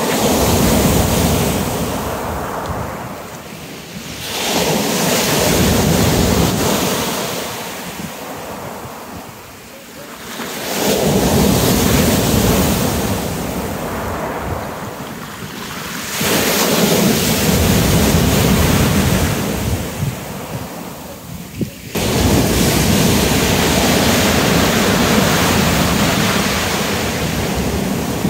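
Waves breaking on a shingle beach, the surf swelling and fading in turn about every five to six seconds.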